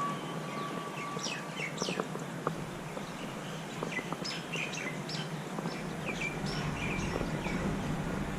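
Small birds chirping, with many short, quick, high calls that slide down in pitch, over steady background noise and a low hum. A steady single tone fades out about a second in.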